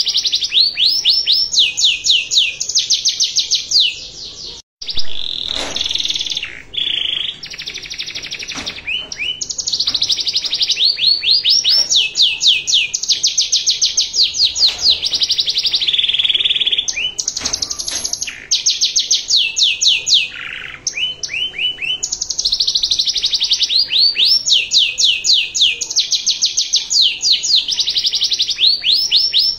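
Domestic canary singing a long song of fast trills, each made of rapid repeated high notes, switching from one trill to the next every second or two. There is a brief break about five seconds in.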